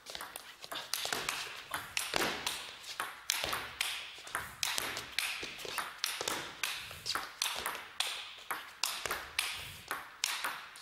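A long table tennis rally: the celluloid ball clicking off rubber-faced rackets and bouncing on the table, a sharp tick every fraction of a second, kept up without a break.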